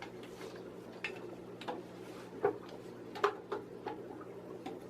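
A square and a clamp being handled and set against wooden boards: a series of scattered sharp clicks and light knocks of hard tools on wood, with a couple of brief scrapes.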